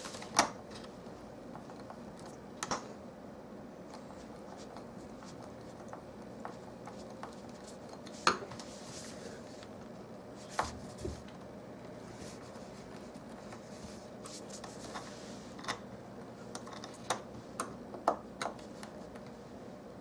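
Scattered sharp clicks and taps, bunched toward the end, from a Phillips screwdriver being set into and turned in screws that fasten a plastic sliding-door stopper into its overhead track.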